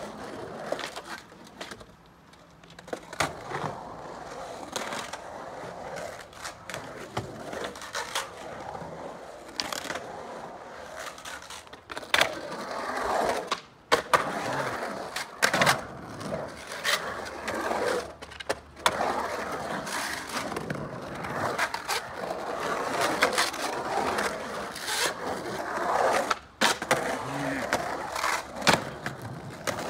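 Skateboard wheels rolling and carving across the walls of an empty concrete swimming pool, the rolling rising and falling as the riders pump through the bowl, with repeated sharp knocks of the boards.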